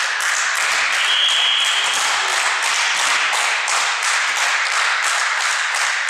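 Crowd and team benches clapping in a steady rhythm, about three claps a second, over continuous cheering in an echoing sports hall. A short whistle blast sounds about a second in, as when the referee signals the serve.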